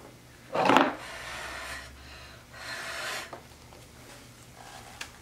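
Short puffs of blown air pushing wet acrylic paint across a canvas in a Dutch pour: a loud puff about half a second in, then softer hisses around one and three seconds in.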